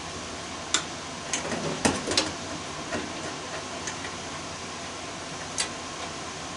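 Wire cutters snipping through a furnace's wiring: a handful of sharp metallic clicks with a small cluster about two seconds in, over a steady hiss.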